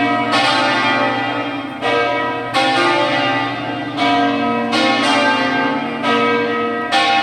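Church bells tolling, a new strike about every second, each ringing on into the next. The strikes vary in pitch, as from several bells of different sizes.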